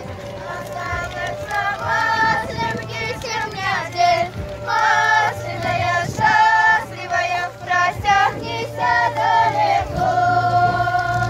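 A group of women's and children's voices singing a song together in high, held phrases, over a steady low hum.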